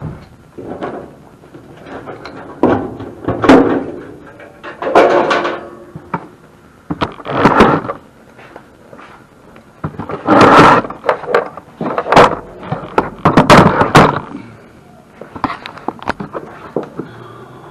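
A series of loud, irregular thuds, knocks and clatters, with the busiest, loudest stretch about two-thirds of the way through.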